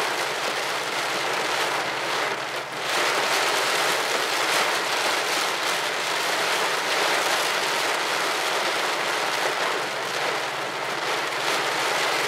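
Heavy rain beating on a car's roof and windshield, heard from inside the cabin: a dense, steady hiss.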